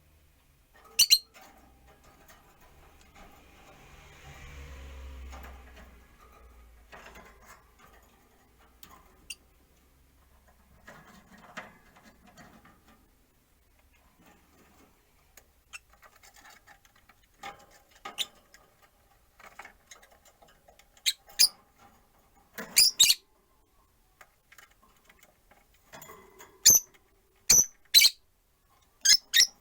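Rosy-faced lovebirds giving short, shrill chirps: one about a second in, then a run of them near the end, with faint clicks between.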